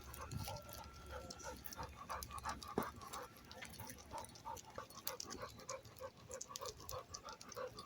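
A big, overweight senior dog panting in quick, even breaths, tired from exertion on a walk. There is one sharp click about three seconds in.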